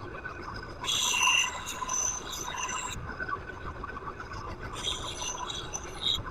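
Steel axe edge being ground on a Delta 4x36-inch belt sander with a 60-grit belt: two grinding passes, about a second in and near the end, hissing over the steady running of the sander and a shop vac.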